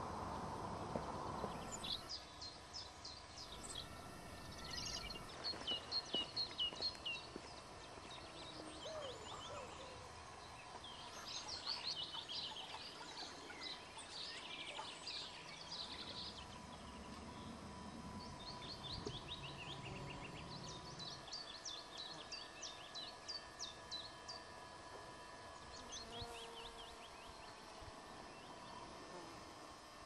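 Songbirds singing in spring scrub, short phrases of quick downward-sliding high notes repeated every few seconds, over a steady outdoor background hiss.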